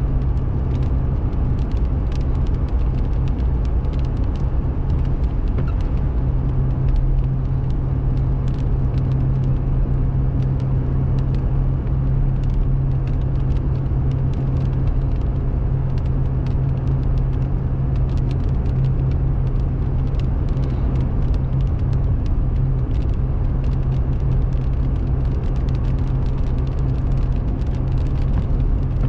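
Car cabin noise while driving on the highway: a steady low drone of engine and tyres on the road, with many scattered faint ticks over it.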